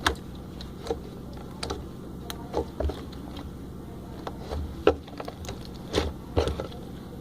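Homemade shaving-foam slime being squeezed and stretched in the hands, making irregular small clicks and squelching pops.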